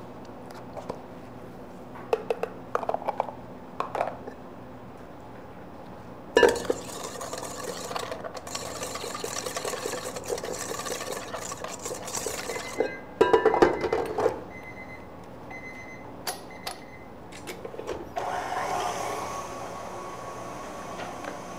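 Kitchen work sounds: scattered clinks of bowl and utensils, a stretch of rustling and scraping, then an electric mixer starting up near the end and running steadily to whip egg yolks with sugar.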